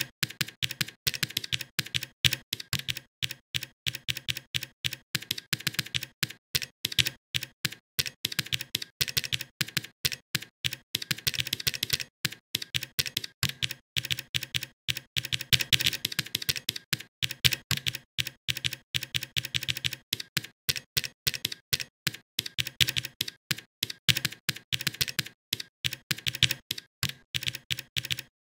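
Steady typing on a computer keyboard: rapid key clicks, several a second, with a few short pauses.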